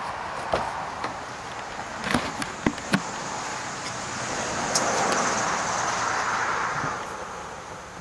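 Footsteps and a few sharp knocks and clicks as a Mazda Miata's driver's door is opened, then a broad rushing noise that swells in the middle and fades before the end.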